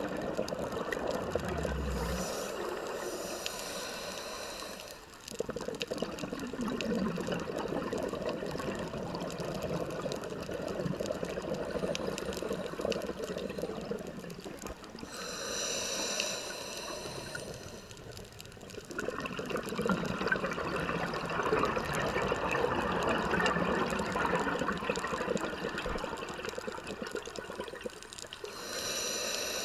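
Scuba regulator breathing heard underwater: long stretches of exhaled bubbles rushing and gurgling, broken by a short, higher hissing inhale a little past halfway and again near the end.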